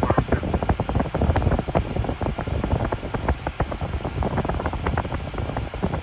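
Wind buffeting the phone's microphone: a steady rushing noise with irregular low, fluttering thumps.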